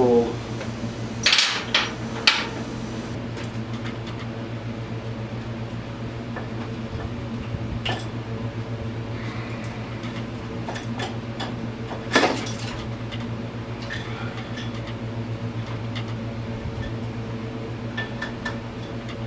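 Metal clanks and clinks of tools and engine parts being handled while the cylinder is worked off an ATV's single-cylinder engine. The loudest knocks come about one and two seconds in and again about twelve seconds in, over a steady low mechanical hum.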